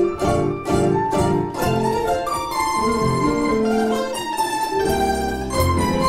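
Domra playing a plucked melody over a recorded backing track, with low bass notes coming in near the end.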